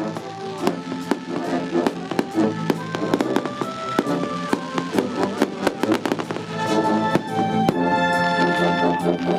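Fireworks bursting and crackling in quick succession over a military band playing. The bangs thin out near the end while the band plays on.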